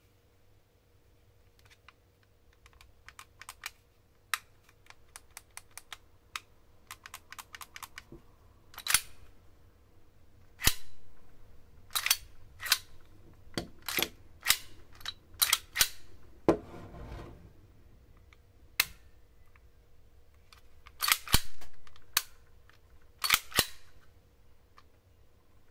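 Tan SIG Sauer P320 M17 gas blowback airsoft pistol being worked by hand: its slide is racked and let go again and again with sharp metallic clacks, among lighter clicks of handling in the first few seconds. About two-thirds of the way through, the slide drags for about a second with a rasping sound.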